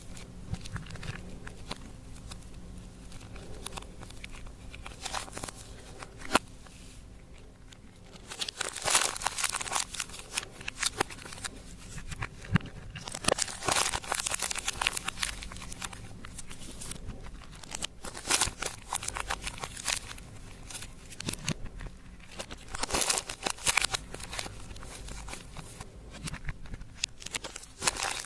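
Hands working slime and makeup materials, making irregular crinkling and crackling noises that come in quick clusters and grow busier after about eight seconds.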